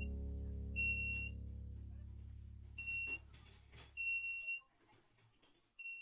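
Piezo buzzer of a homemade laser-and-light-sensor alarm beeping: about five short bursts of one high, steady tone at uneven intervals, the alarm sounding when the laser beam on the sensor is cut. A low background music chord fades away under the first beeps.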